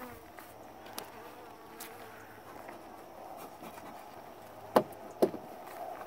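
Honeybees from an open hive buzzing steadily, with a few light clicks and two sharp knocks about half a second apart near the end.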